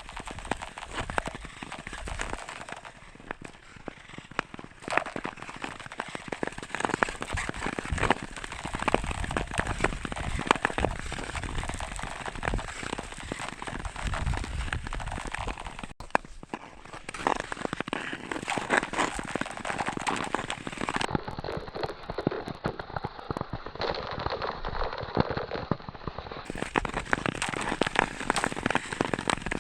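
Ice skates crossing thin black ice frosted with a layer of ice crystals: a steady, dense crackling of many sharp clicks and pops, with a brief break about 16 seconds in.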